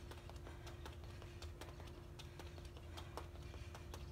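Quick sneaker footsteps tapping and scuffing on a concrete patio during a fast footwork drill: a light, uneven patter of about five taps a second, with a faint steady hum underneath.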